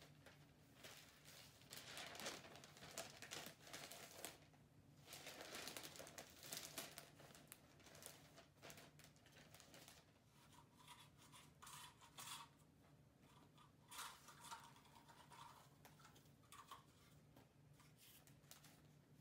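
Faint rustling and crinkling of gift-wrapping paper and ribbon being handled, in several uneven bursts of a second or two, over a faint steady hum.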